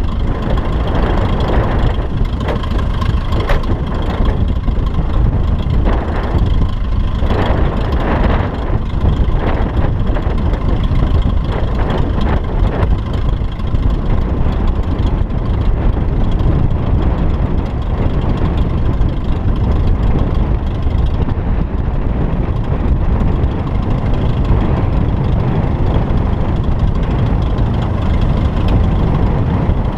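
Piper Cub's engine and propeller running steadily just overhead, mixed with heavy wind rumble on a camera riding on a moving car.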